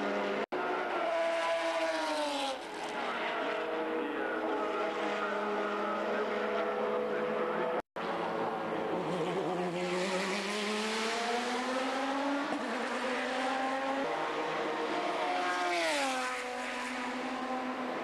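Lister Storm GT race car's Jaguar V12 running hard on track through three spliced camcorder clips. The note drops as a car goes by, then after a cut a long rising note as it accelerates, and near the end a sharp fall in pitch as it passes or lifts off. The sound breaks off briefly at each cut.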